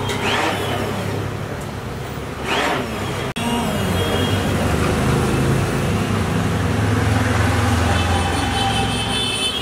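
Road traffic noise: motor vehicle engines running steadily, with a brief dropout about a third of the way through.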